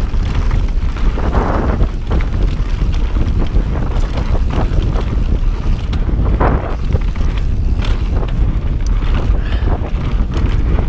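Strong wind buffeting the camera microphone in a steady low rumble as a mountain bike rolls down a rocky dirt trail, with scattered short clatters from the tyres and bike over bumps and stones.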